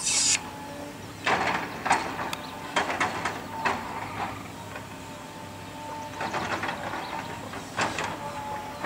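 Volvo excavator engine running steadily, with irregular knocks and clatter as its grab handles a tree stump, in two bouts about a second in and again after six seconds. A brief hiss at the very start.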